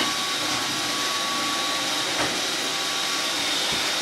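Steady hiss of a running motor or fan with a faint high whine held on one pitch, and a light click about two seconds in.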